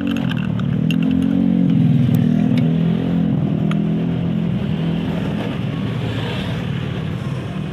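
A motor vehicle engine running close by, its pitch and loudness rising a little about a second or two in, then holding steady.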